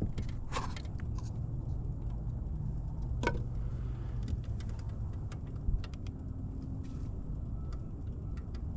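Scattered light clicks and taps of fishing gear being handled in a kayak, over a low steady rumble, with a brief louder knock a little past halfway.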